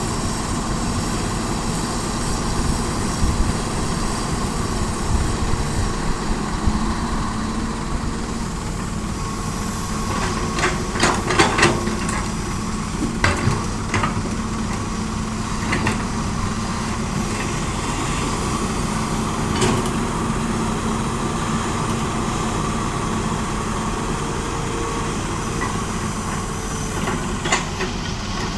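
Heavy diesel machinery running steadily as an excavator loads hard soil into a dump truck, with scattered clanks and knocks, a cluster of them about ten seconds in and more near the end.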